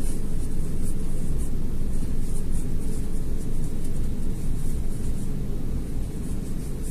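Steady low background rumble, with faint short rustles every half second or so from yarn being pulled through stitches with a crochet hook.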